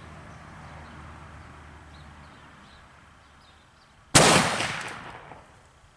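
A single shot from an 1858 Remington cap-and-ball black powder revolver about four seconds in: a sharp crack whose echo dies away over about a second.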